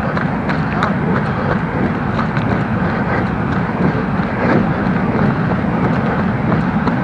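Steady wind rumble on a running action camera's microphone, with faint, roughly regular footfalls ticking through it.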